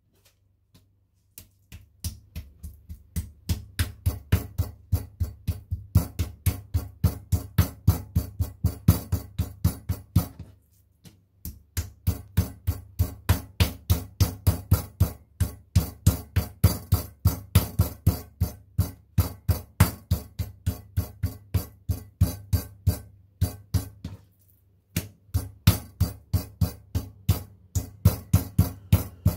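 Meat mallet pounding butterflied pork fillet flat, about four blows a second in steady runs that stop briefly twice.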